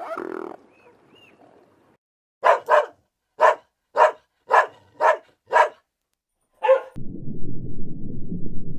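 A dog barking in a quick series, about eight short barks roughly half a second apart. A steady low rumbling noise takes over near the end.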